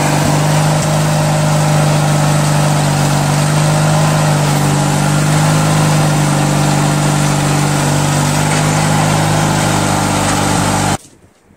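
Craftsman LT1000 riding lawn tractor's V-twin engine running steadily at an even speed; the sound stops abruptly near the end.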